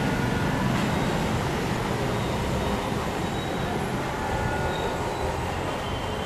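Steady outdoor background noise: a continuous low rumble with an even hiss over it and a few faint, brief high tones.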